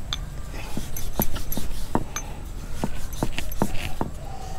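Rolling pin knocking and clacking against a rolling board as small balls of momo dough are rolled out into rounds, with irregular knocks about three a second.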